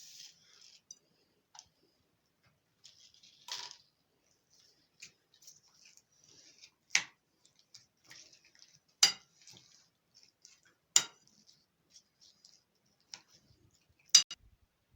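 Sprinkles being shaken out over a fruit salad give a soft, high rattle twice in the first few seconds. Then come four sharp clinks of a utensil or container against the dish, about two seconds apart.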